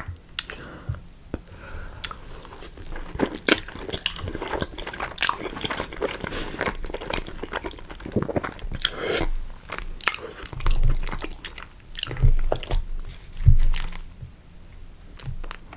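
Close-up chewing and biting of chips with melted cheese and beans: irregular wet mouth sounds and soft crunches.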